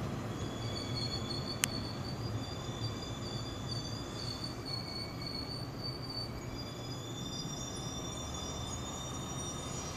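JR 115-series electric train braking to a stop, its brakes and wheels squealing in several high, wavering tones over a low running rumble, with a single sharp click about two seconds in.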